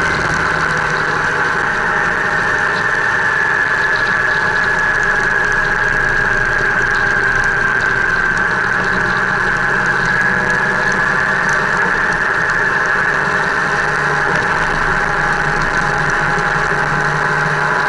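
Motorcycle engine running steadily at cruising speed, heard from on the moving bike.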